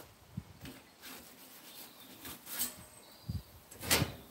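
A pizza peel being slid into a small pellet-fired pizza oven to launch a pizza: a few short scrapes and knocks, the loudest near the end.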